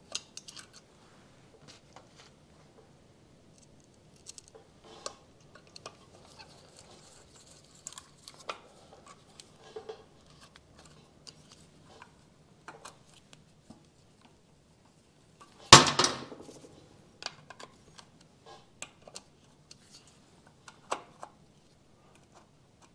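Small metal clicks and taps of a screwdriver, screws and washers being handled against a motorcycle's ignition stator plate, with one louder metallic clank that rings briefly partway through.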